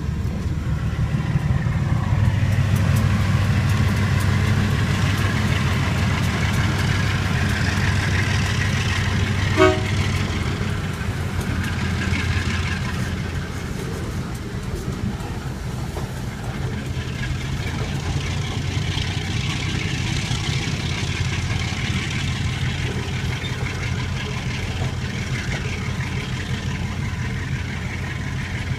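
GE B23-7 diesel-electric locomotive's engine rumbling steadily as it pulls a string of boxcars, with the steady rumble and clatter of the freight cars rolling past. About ten seconds in there is one short sharp horn toot.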